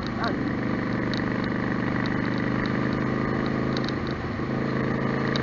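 Yamaha Star Stryker's air-cooled V-twin engine running steadily at cruising speed through a bend, easing slightly about four seconds in.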